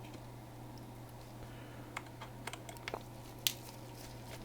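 A few scattered light clicks and taps of small tools and parts being handled on a workbench, over a steady low electrical hum.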